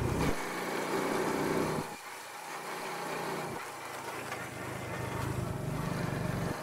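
Motorcycle engine running on the move. Its note drops about two seconds in, then builds again a little after three and a half seconds.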